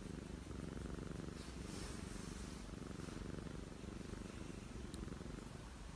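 A domestic cat purring steadily as its cheek and head are stroked, the purr of a contented cat.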